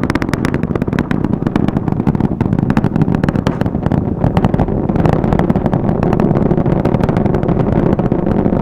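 Space Launch System rocket in powered ascent: a loud, steady rumbling roar shot through with dense crackling from its solid rocket boosters and four RS-25 core stage engines.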